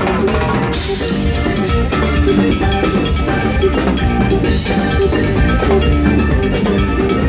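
Latin rock band playing live, with drums and percussion driving the rhythm; a bright cymbal wash comes in about a second in and drops away after about four seconds.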